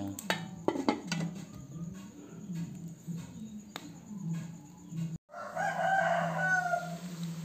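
A rooster crows once near the end, one call of about a second and a half. Before it come scattered sharp clicks and knocks over a low steady hum.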